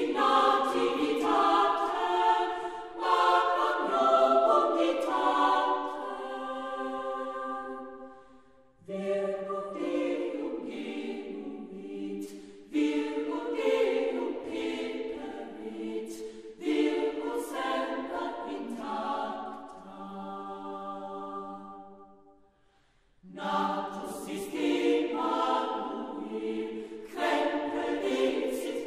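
Choir singing in long sustained phrases, broken by two short pauses about nine and twenty-two seconds in.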